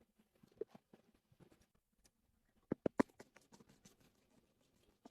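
Faint clicks and crinkles of a small plastic slime container being opened by hand, with a quick run of sharper clicks about three seconds in.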